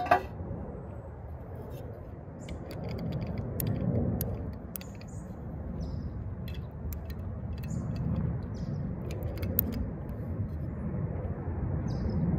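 A 1947 Lister CS 6/1 single-cylinder stationary diesel engine running slowly at about 250 RPM: a low, uneven rumble with light ticks roughly twice a second. A sharp click is heard right at the start.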